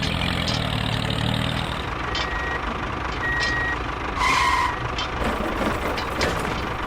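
Truck-style reversing beeper sounding over a steady running engine: two short high beeps about a second apart, then a louder, lower beep.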